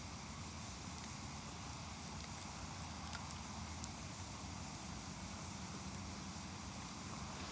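Wood fire burning with a steady hiss and a few faint, sparse crackles, the clearest about three seconds in.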